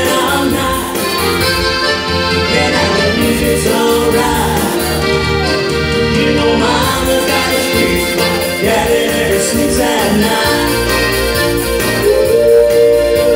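Accordion playing a live dance tune, with a steady bass accompaniment underneath.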